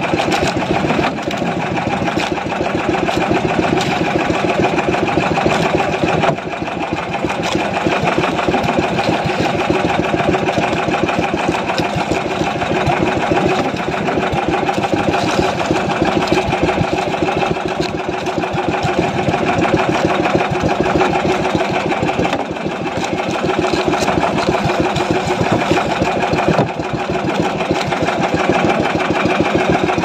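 Small boat engine running steadily, its rapid, even firing beat unbroken, with a few slight dips in level.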